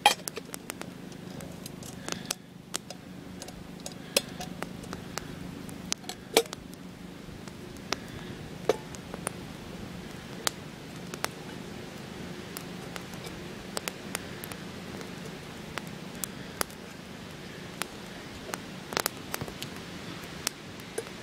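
Small wood campfire crackling, with irregular sharp pops and snaps over a steady low rush.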